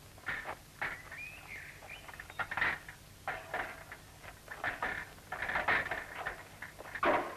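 Chickens clucking in short, irregular calls, with a rising-and-falling chirp about a second in.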